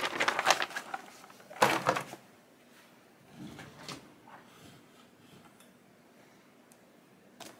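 A stiff heat-press cover sheet rustling and crackling as it is peeled back and handled, then one sharp knock a little under two seconds in, followed by faint handling noises and a small click near the end.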